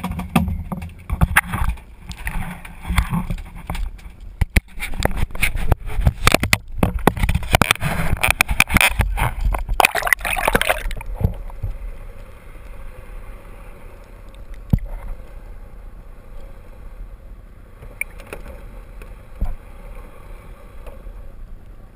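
Water splashing and sloshing with irregular knocks, loud and choppy, then about eleven seconds in the sound turns dull and muffled, as heard from a camera under the water, with a few faint knocks.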